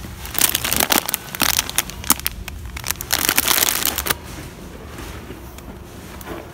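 Plastic packet of Fruit-tella sweets crinkling and crackling as it is handled, a run of sharp rustles that stops about four seconds in.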